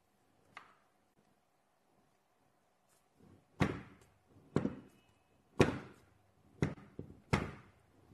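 A hollow sphere of magnetic rods and steel balls handled on a tabletop: one small click, then five dull thunks roughly a second apart in the second half.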